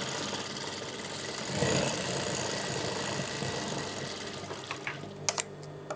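Industrial sewing machine running as it stitches a line along the edge of the fabric; the steady motor hum grows louder about a second and a half in and eases off near the end, where a few sharp clicks follow.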